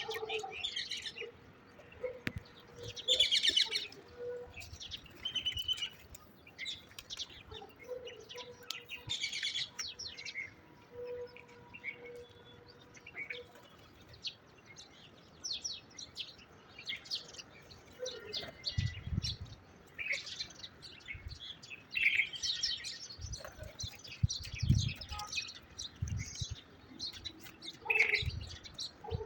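Small birds chirping and tweeting in many short, irregular calls, with a few low thuds in the second half.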